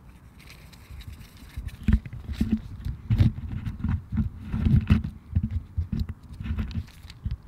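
Footsteps on grass picked up by a handheld camera, starting about two seconds in: irregular low thumps about two a second, mixed with handling knocks on the microphone.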